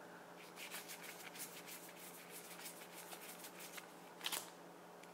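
Trading cards being flipped through by hand, one card slid behind another: a quick run of faint, light clicks and rustles of card edges, with one louder card snap about four seconds in.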